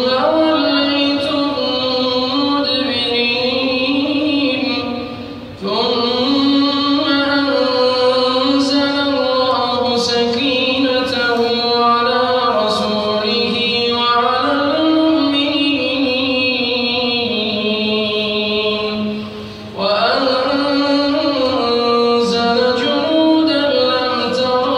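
A man reciting the Quran in melodic, chanted tajweed style, drawing out long held notes. The recitation comes in three long phrases with two short pauses for breath.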